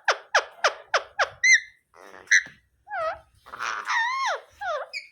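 Pet Indian ringneck parakeet calling: a quick run of short falling squeaks, then a few higher whistled chirps and wavering rise-and-fall calls.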